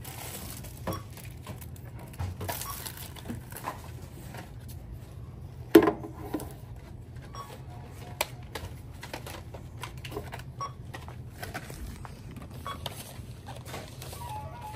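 Merchandise being handled and rung up at a store checkout counter: scattered clatter and light knocks of items being picked up and set down, with one louder knock about six seconds in, over a steady low hum.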